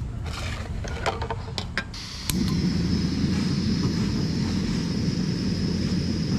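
Metal clicks and handling as a butane canister is screwed onto a camping stove's hose adapter, then about two seconds in a steady rushing hiss of gas starts and keeps going.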